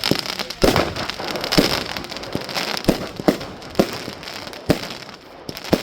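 Iskra Wampir firework going off: a dense, continuous crackling with louder pops breaking through irregularly, about once a second.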